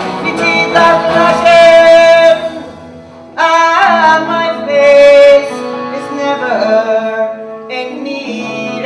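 A woman singing a melody in a traditional Irish style, with instrumental accompaniment. The music drops briefly about three seconds in, then the voice returns with a sliding phrase and a long held note.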